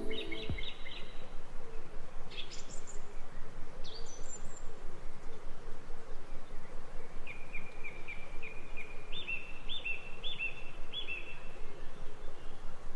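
Songbirds singing in a floodplain forest: a few short chirps and whistles, then a run of quick repeated notes that steps up in pitch partway through. A steady background hiss runs underneath.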